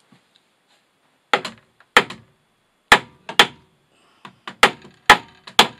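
Hammer blows driving a cable staple into a wooden stud to secure electrical cable near a metal junction box. About nine sharp strikes, each with a short metallic ring: spaced out at first, then coming faster near the end.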